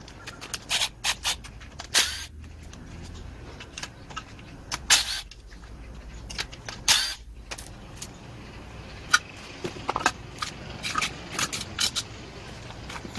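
Irregular metallic clicks, clinks and a few sharp knocks as tools and metal blower-engine parts are handled and set down during disassembly. The loudest knocks come about two seconds in and about seven seconds in.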